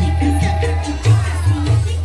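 Loud dance music with a heavy bass line and singing.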